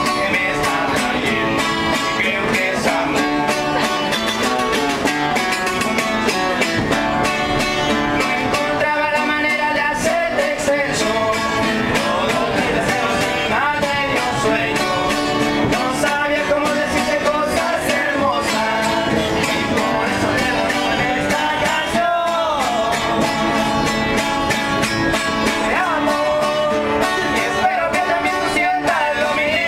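Mexican singers performing a song, their voices gliding over steadily strummed guitar.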